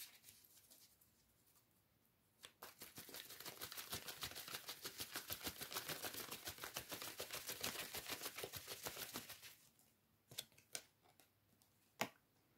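A deck of tarot cards shuffled by hand: a long run of fast, even, soft ticks lasting about seven seconds, then a few single clicks.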